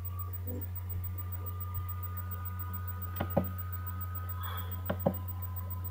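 A steady low hum with two pairs of short, sharp knocks, the first pair about three seconds in and the second near five seconds.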